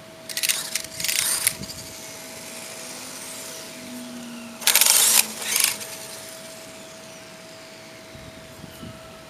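Traxxas Mini E-Revo RC truck's electric motor and drivetrain given two pairs of short throttle bursts, each followed by a falling whine as the motor spins down. This is the truck whose rear drivetrain clicks under acceleration even after a new rear bulkhead and rear skid plate.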